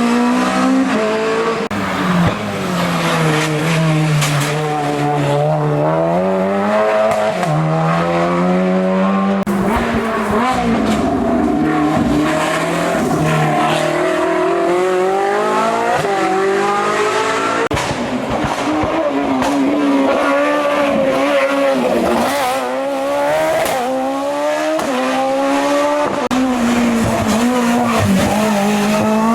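Racing car engine at full effort through a hillclimb run, its revs climbing and dropping back again and again as it accelerates, changes gear and lifts.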